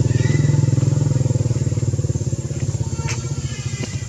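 Small motorbike engine running with a fast, even low throb, fading in the last second or so.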